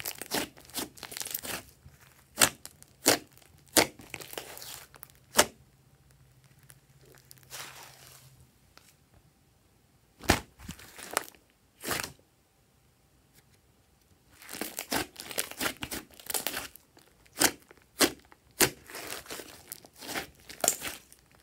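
Hands kneading, stretching and squeezing thick slime mixed with clay, giving wet clicks and pops as trapped air pockets burst. The pops come in clusters, with a few sparse pops and quiet gaps in the middle, and dense crackly popping in the last third.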